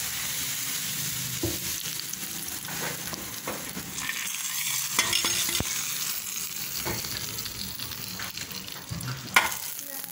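A hot oil tempering of cumin seeds and dried red chillies sizzles as it goes into a steel pot of lentil-and-aubergine mixture, and a spoon stirs it, clinking and knocking against the pot several times. The loudest knock comes near the end.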